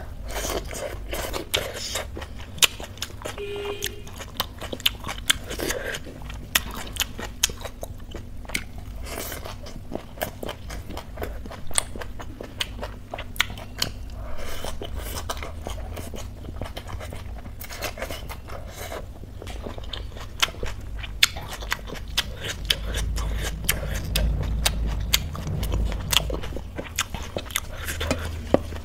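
A person chewing and crunching mouthfuls of cooked leafy greens, raw shredded cabbage and rice eaten by hand, with many sharp, irregular crunches.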